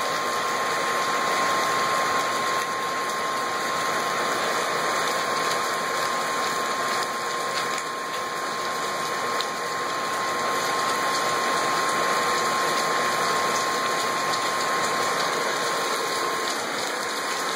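Steady rain falling hard, with roof downspouts running full of water. A thin steady tone sits under it and stops near the end.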